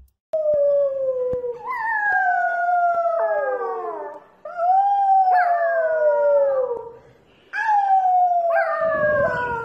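Puppy howling: three long howls, each sliding slowly down in pitch.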